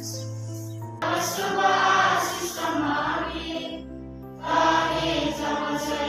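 A choir singing over steady held instrumental chords, in two sung phrases with a short pause about halfway through.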